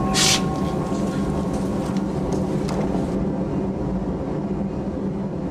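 A steady low rumbling roar of workshop equipment, with a short hiss just after the start.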